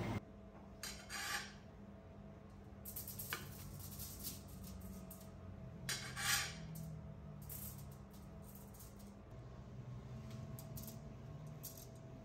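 A metal ladle scraping and scooping cooked rice onto a metal tray: a few short, faint scrapes with light clinks, the loudest about six seconds in.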